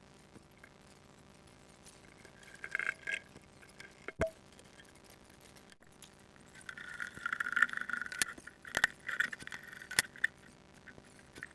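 Small metal objects clinking and rattling in bursts, with a few sharp clicks; the busiest clatter comes in the second half.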